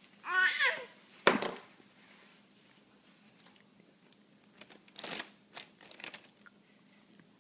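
A baby's brief squealing babble, then a single sharp knock about a second in. From about the middle on, a few short crackles of a plastic snack bag as the baby grabs at it.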